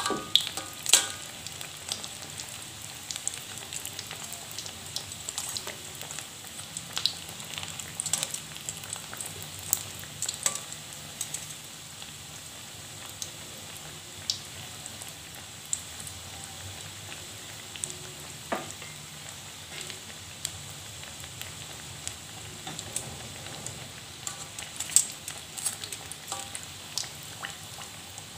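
Pastel pastries filled with rice vermicelli and vegetables deep-frying in hot oil in a wok: a steady sizzle with frequent sharp pops and crackles.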